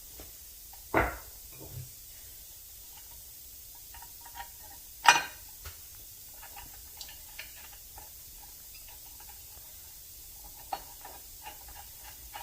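Two sharp knocks, about a second in and about five seconds in, among scattered lighter clicks and taps: metal parts and tools being handled on a shop bench.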